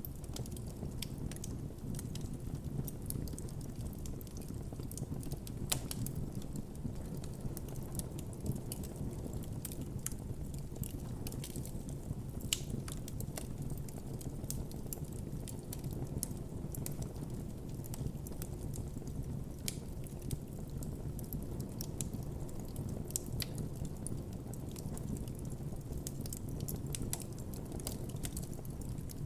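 Wood campfire burning with a steady low rumble of flame and frequent irregular crackles and pops.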